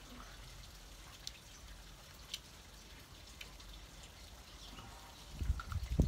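Quiet outdoor background with a few faint, sharp ticks spaced about a second apart, then irregular low rumbling thumps in the last second.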